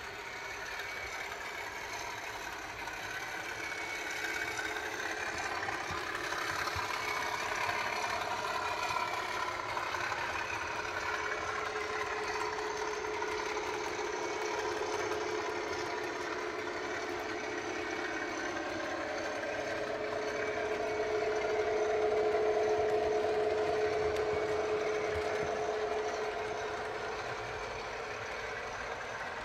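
Model trains running on the layout: a steady mechanical hum of locomotive motors and wheels on the track, swelling to its loudest about twenty seconds in before easing off.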